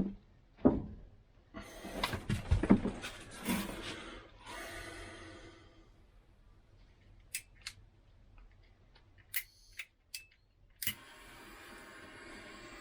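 Clicks and rustling from handling wires and a plastic heat-shrink solder connector, then a few separate sharp clicks. About eleven seconds in, a heat gun switches on with a click and its fan starts blowing with a steady hiss.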